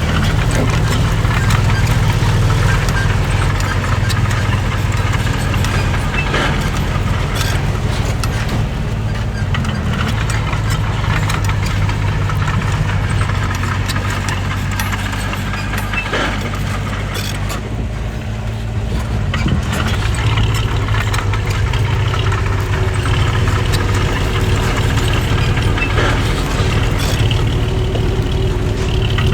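Heavy diesel engine of earthmoving machinery running steadily, with scattered clanks. The engine eases off briefly a little past the middle, then picks up again.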